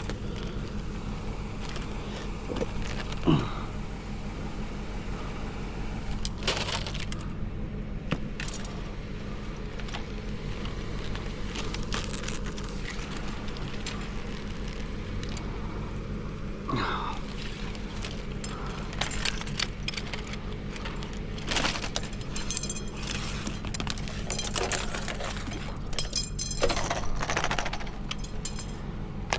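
Light metal pieces, such as tent-pole rods, clinking and rattling against each other in repeated short clanks as they are handled and sorted, over a steady low hum.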